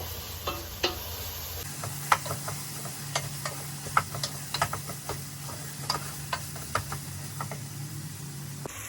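A utensil stirring a simmering meat and vegetable sauce in a pan, clicking and scraping against the pan several times a second over a low sizzle.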